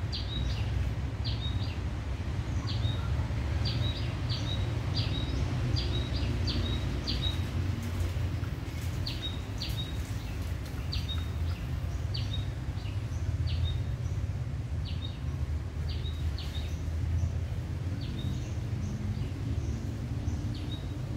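A small bird chirping over and over, short high notes often in quick pairs, over a steady low background rumble.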